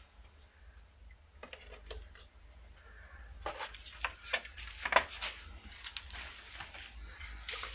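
A series of short clicks and knocks from hands working at the engine bay, clustered in the middle and loudest about five seconds in.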